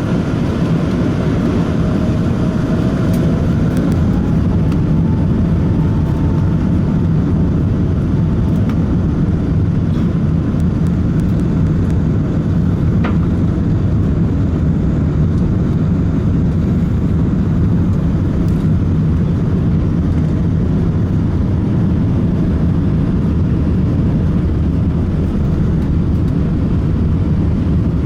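Cabin noise of an Airbus A380 on takeoff: the four Rolls-Royce Trent 900 engines spool up, with a whine rising in pitch over the first few seconds. It then settles into a loud, steady engine noise with a deep rumble underneath.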